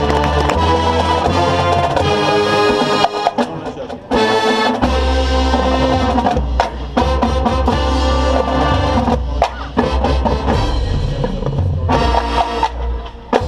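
Marching band playing its competition field show: held chords over drum and percussion hits, with a short drop in level about four seconds in before the full band comes back.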